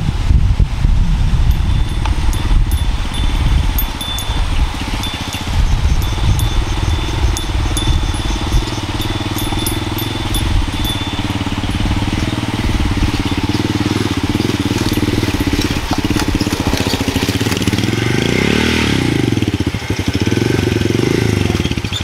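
Small motorbike engine running steadily as the bike rides along, its pitch dipping and rising a couple of times near the end.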